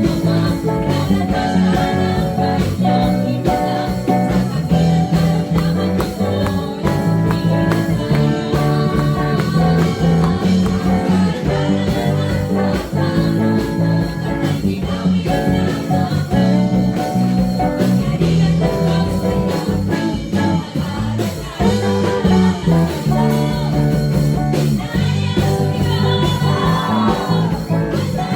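Worship music playing: a song with guitar and singing over a steady band accompaniment.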